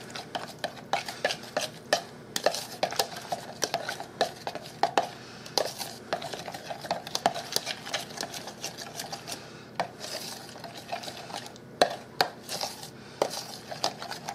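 Metal spoon stirring a mayonnaise and Dijon mustard mixture in a small bowl, clinking and scraping against the bowl in an irregular run of clicks, several a second.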